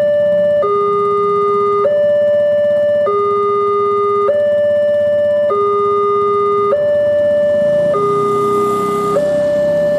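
Railway level-crossing alarm sounding its electronic two-tone warning, alternating evenly between a higher and a lower note, each held a little over a second, signalling that a train is approaching. A rushing noise swells briefly near the end.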